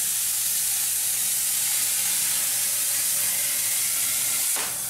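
Hypertherm Powermax45 plasma cutter hissing steadily as its arc cuts through a car's sheet-metal quarter panel. The hiss dips briefly near the end, where the torch reaches plastic body filler that breaks the arc.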